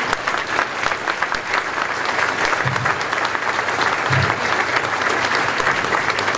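A large audience clapping, a dense and steady round of applause.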